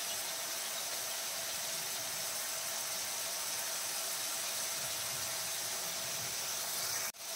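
Chicken pieces sizzling steadily in hot oil in a pan. The sound cuts out briefly about seven seconds in.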